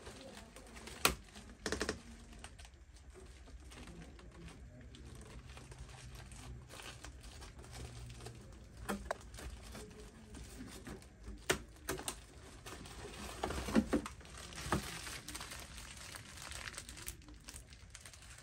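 Plastic packaging bags crinkling and rustling as bagged parts are handled and lifted from a cardboard box, with scattered sharp clicks and knocks, loudest about a second in and in a cluster around two-thirds of the way through.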